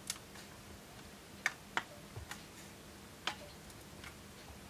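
About four sharp, light clicks spread over a few seconds as a metal shield cover is pressed down and seated over an oscilloscope's front-end circuitry.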